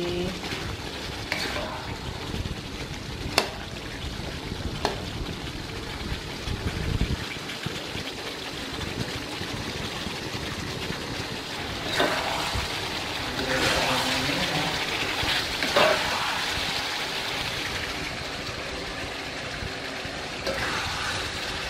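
Beef liver simmering and sizzling in a thick sweet soy-sauce gravy in a pan, stirred with a spoon. A couple of sharp taps of the spoon on the pan come in the first few seconds, and louder stirring and scraping follows about halfway through.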